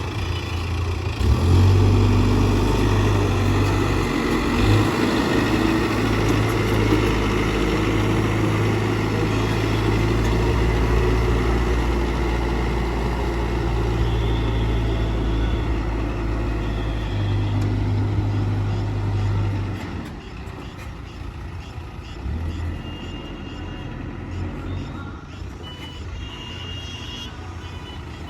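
Case 770EX backhoe loader's diesel engine running hard under load, then dropping to a lower, quieter note about twenty seconds in.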